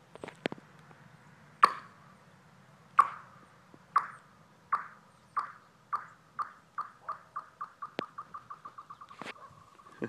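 A golf ball bouncing across frozen pond ice: each bounce gives a short ringing chirp from the ice sheet. The hits come quicker and fainter until they blur into a steady buzz near the end as the ball skitters away.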